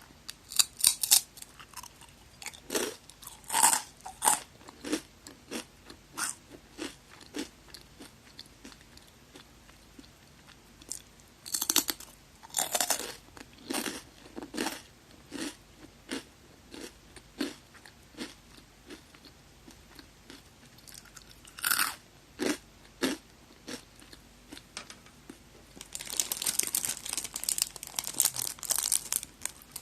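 Biting into and chewing magari senbei, a sweet curved Japanese cracker. Separate crisp crunches come every second or so, then a dense run of fast crunching near the end.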